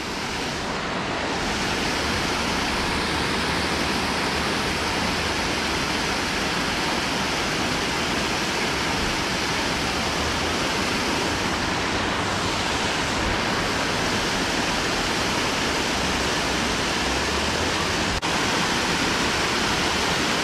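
Water pouring over a low weir into a pond: a steady, even rush of falling water.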